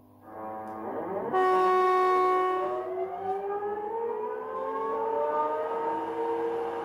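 Accurascale Class 92 model's DCC sound decoder, heard through the model's small speaker: a loud steady tone for about a second, then several tones gliding upward together and settling into a steady electric whine.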